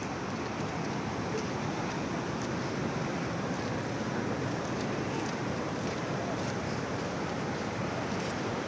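Steady wash of ocean surf breaking on the beach, with some wind on the microphone.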